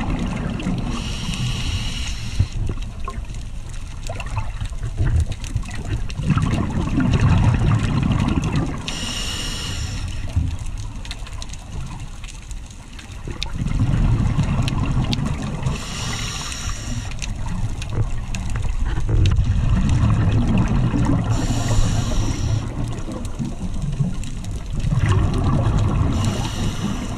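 A scuba diver breathing through a regulator underwater: five breaths, each a short hiss of inhalation through the demand valve followed by several seconds of exhaled bubbles gurgling and rumbling past the mic.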